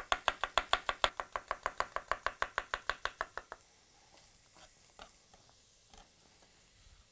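Chef's knife rapidly chopping onion on a wooden cutting board, about six even strokes a second, stopping about three and a half seconds in. A few faint taps follow.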